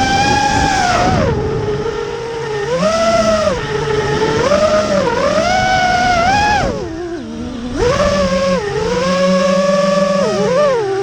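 FPV quadcopter's brushless motors and propellers whining, the pitch rising and falling with throttle changes. About seven seconds in the pitch and level drop for a second on a throttle cut, then climb back.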